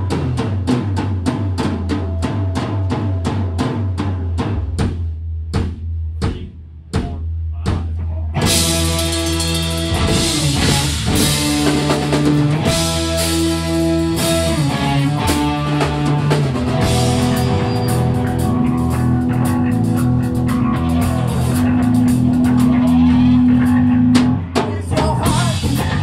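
Live rock band playing an instrumental passage on drums, bass and electric guitars. A steady drum beat runs over a held low bass note and thins out briefly. About eight seconds in the full band comes in with cymbal crashes and sustained guitar chords that change every second or two.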